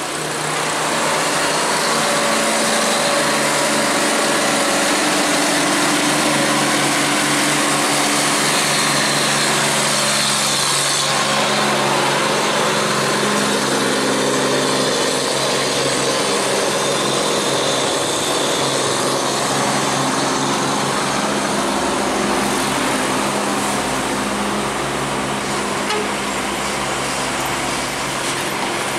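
Diesel engines of heavily loaded dump trucks labouring up a steep hairpin climb: a steady engine drone whose pitch wanders slightly, with a deeper rumble joining about two-thirds of the way through.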